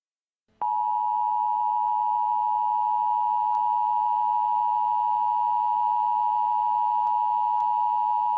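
Emergency Alert System attention signal: a steady two-note alert tone that comes in after a brief silence and holds unchanged for about eight seconds. It is the tone that comes before an emergency alert message.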